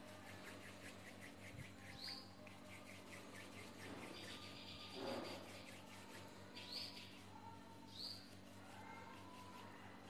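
Faint bird chirping in the background: short chirps that sweep upward, repeated every few seconds, over quiet room hum.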